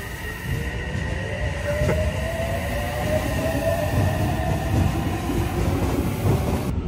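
Electric commuter train pulling away from the platform: its motors give a whine that rises steadily in pitch as it accelerates, over the low rumble of the wheels. The sound cuts off abruptly near the end.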